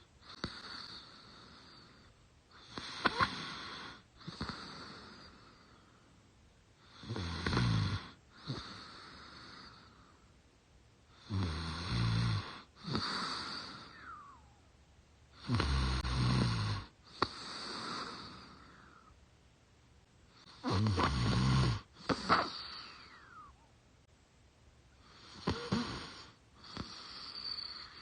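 A young woman snoring in her sleep, breathing through her mouth, slowly and regularly about every four to five seconds. Each breath is a louder snore with a low flutter followed by a softer one.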